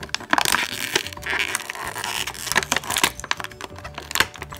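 Clear plastic packaging bag crinkling and crackling as hands work a small plastic toy banjo loose from it, with many sharp little clicks.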